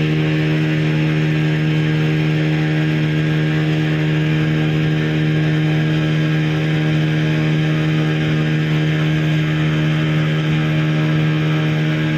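Tour boat's engine running steadily at constant speed, an even drone with a low hum.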